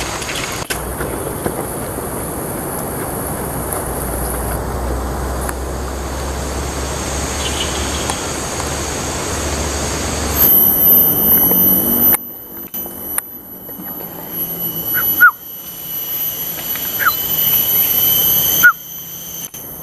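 Forest ambience. A steady rushing noise with a low rumble runs for the first half. Then a steady high-pitched insect drone takes over, with a few short chirps, broken by abrupt cuts and a couple of sudden loud pops.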